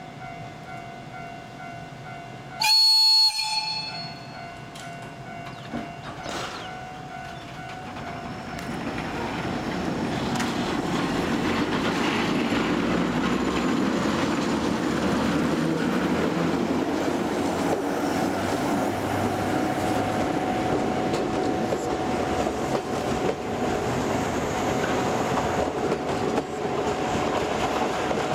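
Joshin Electric Railway Deki 3, a Siemens-Schuckert electric locomotive, gives one short horn blast about three seconds in. It then pulls out hauling its train, and a steady rolling rumble with wheel clatter builds from about eight seconds in as the locomotive and car pass.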